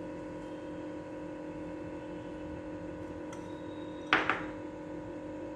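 Steady electrical hum, with two quick sharp knocks of a steel spoon and serving bowl about four seconds in.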